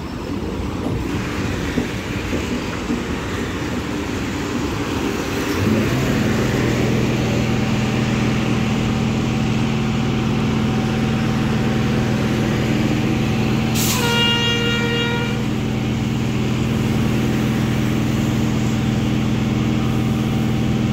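Electric multiple-unit suburban train running at speed, heard from its open doorway: continuous wheel and rushing noise, with a steady hum setting in about six seconds in. Near the two-thirds mark a horn toots once, briefly.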